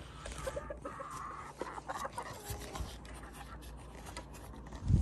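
Hand working a wooden hand-crank gear mechanism: wood rubbing and scraping with scattered light clicks, and a heavier knock at the very end.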